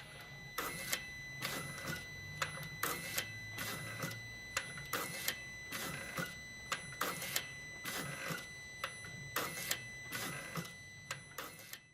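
Clutch actuator squeaking over and over in short, sharp strokes, about two a second and often in pairs, over a steady high-pitched tone. The squeak is the fault the lubrication is meant to cure.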